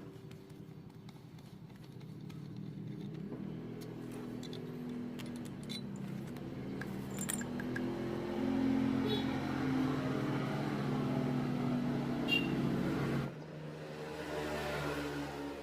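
An engine running with a steady pitched hum that shifts in pitch a few times, with a few light metallic ticks. The sound changes abruptly about thirteen seconds in.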